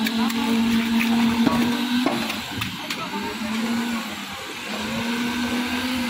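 Concrete needle (poker) vibrator running, its vibrating head worked in the wet concrete of a slab pour. A steady high hum that breaks off and shifts in pitch a few times.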